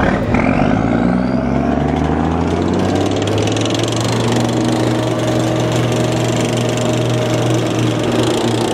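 Tracked armoured vehicles driving past with their diesel engines running: the engine pitch rises over the first couple of seconds as they pull away, then holds steady.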